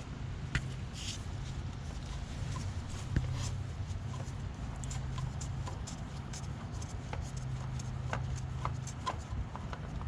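Small scattered clicks and rubbing from hands working at a loosened spin-on oil filter, over a steady low hum.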